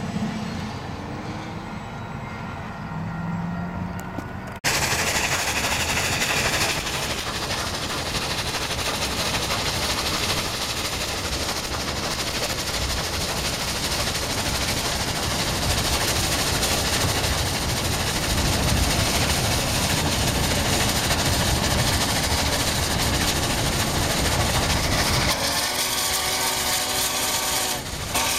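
Union Pacific passenger cars clattering past on the rails. After an abrupt cut comes a loud, steady rush: Union Pacific FEF 4-8-4 steam locomotive No. 844 running at speed, heard from a pacing car with wind and road noise over it. Near the end a steady pitched hum with overtones joins in.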